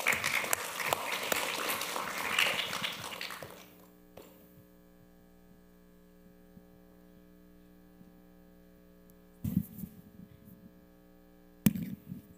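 Audience applause for about three and a half seconds, dying away. Then a steady electrical hum, with two short bumps near the end.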